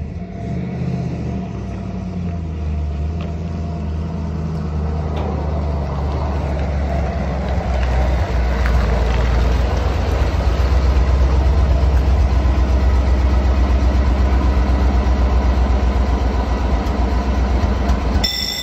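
Engine of an old GAZ lorry running at a slow crawl as the truck rolls onto a weighbridge, a low rumble that grows steadily louder as it draws close and stays strong as the cab passes.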